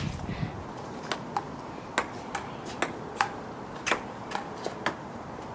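Table tennis rally: the ball clicking off paddles and the tabletop in a string of about ten sharp knocks, roughly two a second at uneven spacing.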